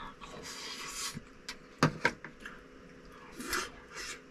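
A man chewing a mouthful of rice and tteokgalbi close to the microphone, with a few light clicks of a fork and plate.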